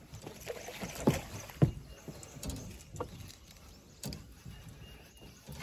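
Irregular knocks and bumps in a small fishing boat while a hooked fish is being played. The loudest is a sharp thump about a second and a half in.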